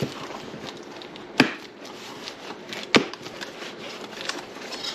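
Packaging and parts of a boxed monitor arm being handled: soft rustling with two sharp knocks, about a second and a half apart.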